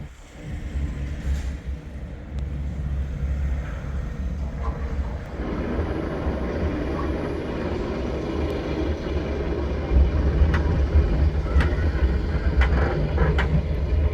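Skyride cable-car gondola travelling along its cable: a steady low rumble with wind on the microphone, getting louder about half a second in and again around five seconds, with a few sharp clicks near the end.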